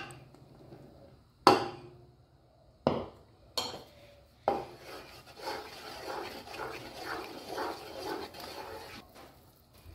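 A few sharp knocks against an aluminium pot, the loudest about a second and a half in, then a wooden spoon stirring wholewheat flour into hot ghee in the pot: a steady scraping at about two strokes a second, stopping near the end.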